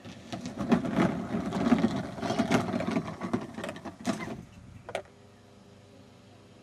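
A child's plastic toy coaster car rolling down its plastic track and out onto the grass: a clattering rumble of plastic wheels on plastic that lasts about four seconds, then a single knock about five seconds in.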